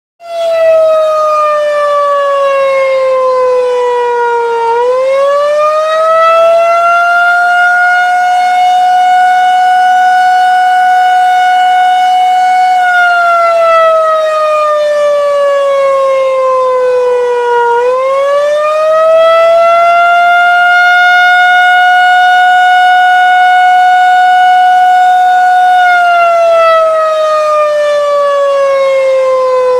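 Federal 2001-130 tornado siren, a 48-volt DC electromechanical siren, sounding the attack signal. Its loud tone winds up in pitch and holds for about eight seconds, then winds down for about five, and the cycle repeats twice.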